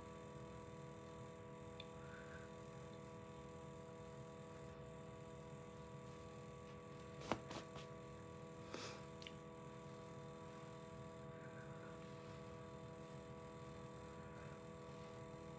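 Quiet room tone with a steady hum, broken by two small knocks, one about seven seconds in and another a second and a half later.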